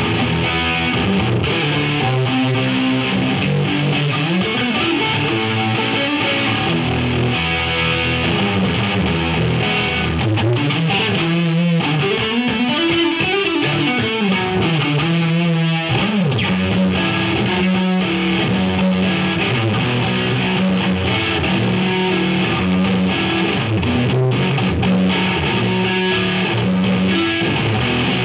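Electric guitar played through a Marshall JVM410 valve amp, with held notes and string bends around the middle.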